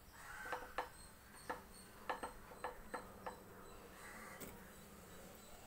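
Cubes of paneer dropped a few at a time into hot ghee in an aluminium pressure cooker: about nine faint, irregular taps and pops over a faint sizzle.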